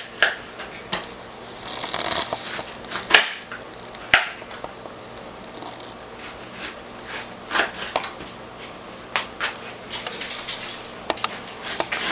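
Knife slicing an orange into rounds: irregular knocks of the blade coming down, with the two sharpest about three and four seconds in, and soft scraping between them.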